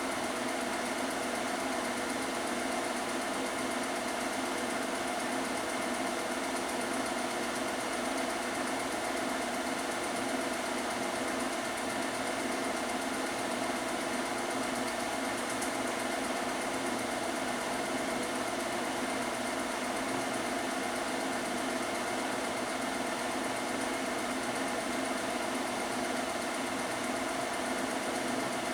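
Steady mechanical whirr of a film projector running, an even hum with several steady tones that does not change.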